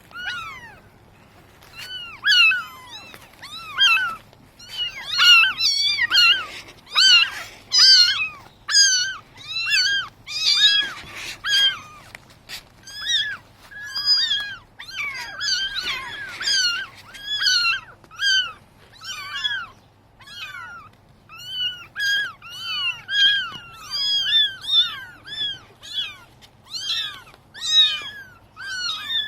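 A group of gulls calling: many short mewing calls, each rising and falling in pitch, several birds overlapping at two to three calls a second, starting about two seconds in.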